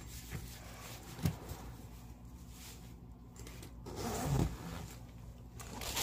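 Zipper on a fabric beanbag chair being pulled in a few short rasps, with handling noise; the loudest rasp comes about four seconds in.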